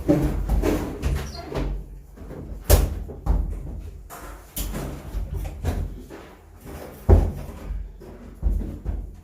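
Irregular knocks and clunks of hands-on installation work on a washing machine, with two sharp bangs, about three seconds in and about seven seconds in.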